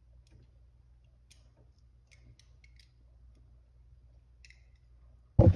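Faint, scattered clicks and snips of hand wire strippers cutting and pulling the insulation on a 10-3 SOOW power cord. A brief loud thump near the end.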